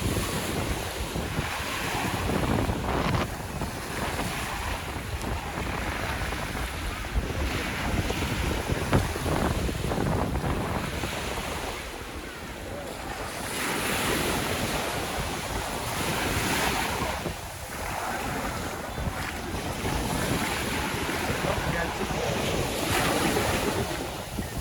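Sea waves breaking and washing up the shore, the hiss surging and falling away every few seconds, with wind buffeting the microphone.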